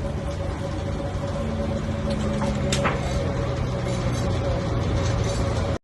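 Keck Gonnerman steam traction engine of 19 or 20 horsepower running steadily under belt load, driving a sawmill, with a continuous mid-pitched tone over the low rumble. A short sharp sound comes about three seconds in.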